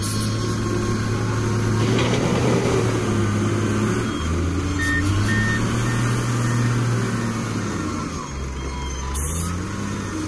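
LiuGong 848H wheel loader's diesel engine running under load, its pitch rising and falling every few seconds as the loader works.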